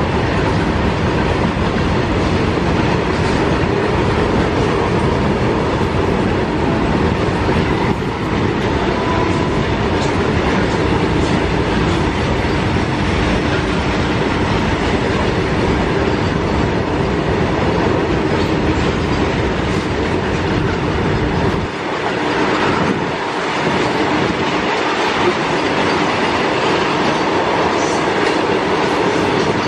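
Fully loaded freight train of covered wagons rolling past: a steady, loud rumble and clatter of wagon wheels on the rails. There is a brief lull in the low rumble a little past twenty seconds in.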